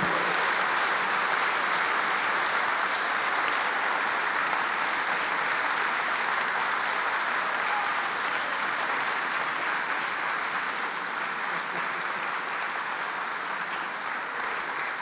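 Audience applauding: dense, steady clapping that slowly dies away toward the end.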